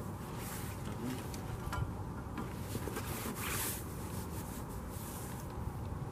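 Wind rumbling on the microphone, with faint scattered rustles and ticks.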